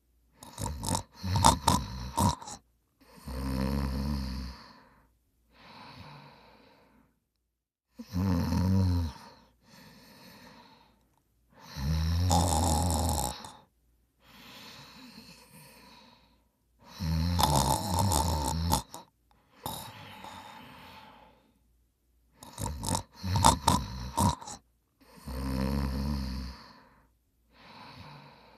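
A person snoring: loud snores, some with a fluttering rattle, each followed by a softer breath, in a steady cycle about every five seconds.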